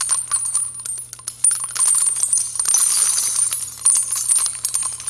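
Sound effect of rapid, high metallic clinking and jingling: many small strikes in quick succession.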